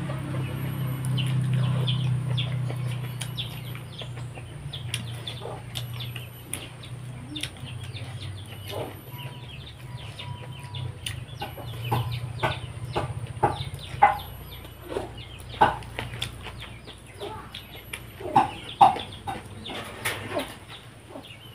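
Eating rice with the fingers: short clicks and smacks of chewing and of fingers mixing rice on a plate, mixed with chickens clucking. A low hum swells in the first few seconds and fades.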